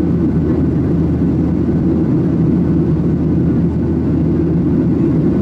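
Steady low drone of a Boeing 737-800 in flight as heard inside the passenger cabin: its CFM56 jet engines and the airflow over the fuselage, with no change in pitch or level.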